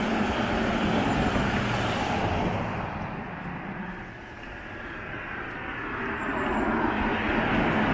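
Road traffic going by: a steady rush of vehicle noise that eases about four seconds in, then builds again as another vehicle approaches.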